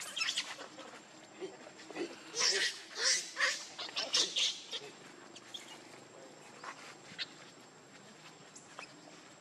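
Pig-tailed macaques screaming during a scuffle over an infant: a run of short, shrill shrieks, loudest from about two to five seconds in, then dying away.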